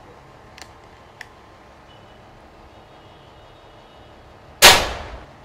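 Precihole PX100 air rifle firing a single shot: one sharp crack with a short ringing tail, about four and a half seconds in, preceded by two faint clicks.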